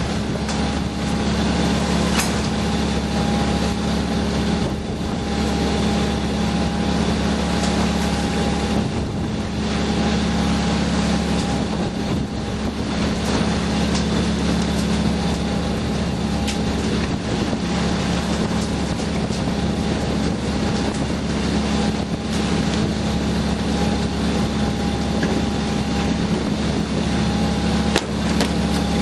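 Fishing boat's engine running steadily: a constant low drone with a faint steady whine above it and a few light knocks.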